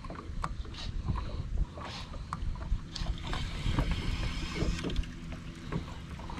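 Lake water lapping and slapping against a small fishing boat's hull, with a low wind rumble on the microphone and scattered small clicks; a faint steady hum sits under it for a few seconds in the middle.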